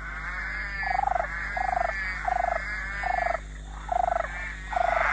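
Frog chorus at night: many overlapping calls throughout. From about a second in, one louder, lower, pulsing call repeats six times, evenly spaced. These are males' mating calls.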